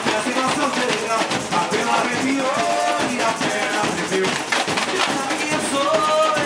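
Samba school drum section playing a fast, dense samba beat, with surdo bass drums under many rapid strokes of smaller percussion, and voices singing over it.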